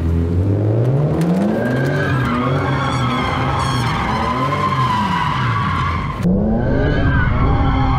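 BMW M3 doing donuts: the engine revs climb and then rise and fall while the rear tyres squeal as they spin and slide. About six seconds in, the sound changes abruptly.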